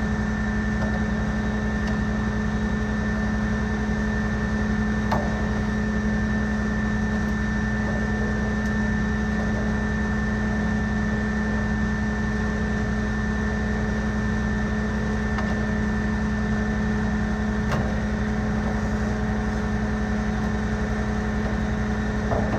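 Fire engine's engine running steadily to drive its water pump while a hose line is flowing: a constant mechanical drone with a steady whine over it.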